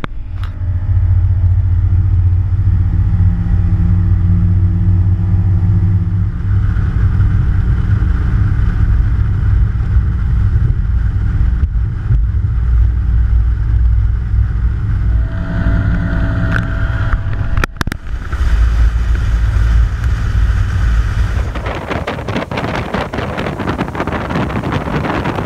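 A fishing boat's motor running at speed, a steady low drone with wind and water rush. About three-quarters of the way through it gives way to heavy wind noise buffeting the microphone.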